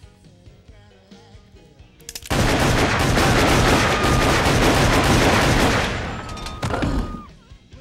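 Two pistols firing rapidly together in a sustained volley, starting about two seconds in and lasting about three and a half seconds, then a short second burst of shots near the end.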